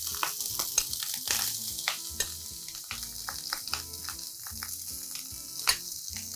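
Cooked rice frying in sesame oil in a hot wok, sizzling steadily, with many short clicks and scrapes of the spatula against the wok as the rice is stirred.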